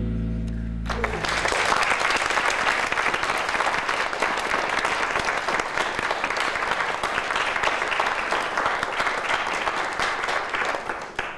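Audience applause rising as a piece of music ends about a second in, then sustained clapping that dies away near the end.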